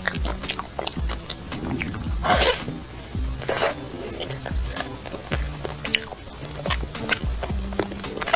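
Close-miked chewing and biting of a soft, dense sandwich pastry, with many small wet clicks, over background music. Two brief louder noisy sounds come about two and a half and three and a half seconds in.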